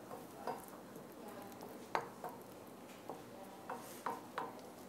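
Wooden spatula tapping and scraping inside a non-stick frying pan as an omelet's edges are loosened: a scatter of faint light knocks, the clearest about two seconds in.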